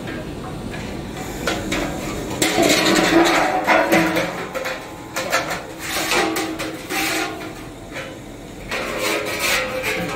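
Metal clanks and scrapes as the stainless-steel diffusion pump core is lowered and fitted into the pump body, with knocks every second or so.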